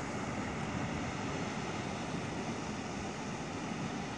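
Steady outdoor wind noise, with wind rumbling unevenly on the microphone; no distinct splash or other event stands out.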